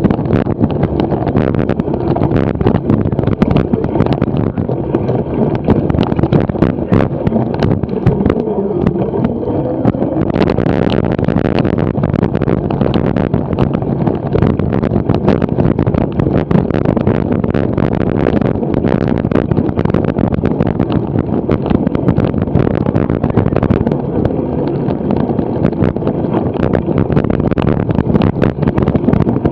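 Wind buffeting the microphone while a cyclo-cross bike runs over bumpy grass and mud, its tyres and frame rattling with many small knocks.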